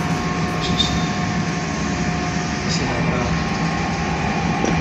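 Dtech Supermill CNC vertical milling machine running with a steady hum and a steady high whine while its axes feed the spindle toward the workpiece zero point on a G1 feed move at F700. There are a few faint short ticks.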